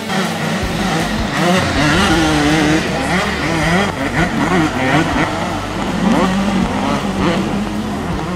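Off-road dirt bike engines revving, the pitch repeatedly rising and falling as the bikes accelerate and shift.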